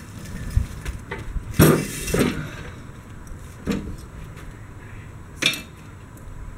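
Several separate metal clanks and knocks, the loudest about a second and a half in and again near the end, as the heavy steel flail mower is shoved and levered into place under the tractor.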